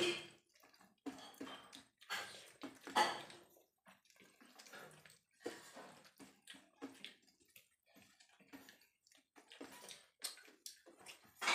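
Wet eating sounds of two people eating rice and chicken curry with their hands: squelching as rice is mixed and lifted, chewing and mouth smacks, with light clicks of fingers on steel plates. The loudest wet smack comes about three seconds in.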